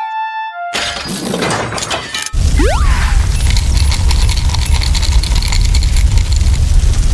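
A short synth tune with a falling glide breaks off under a crash sound effect: shattering and clattering. About two seconds in, a much louder heavy rumble with breaking-glass clinks and a quick rising whoosh sets in and keeps going, the sound of something being smashed to pieces.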